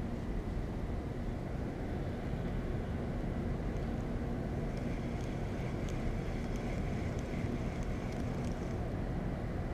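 Steady low rumble of a distant motor with a faint hum running through it, and a few faint light ticks in the second half.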